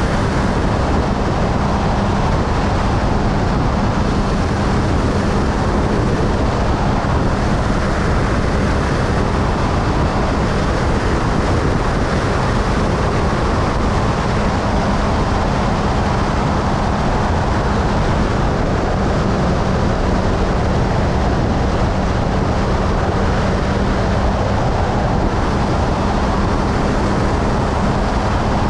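Motorcycle cruising at a steady highway speed: a constant engine hum at even revs under a loud, steady rush of wind and road noise.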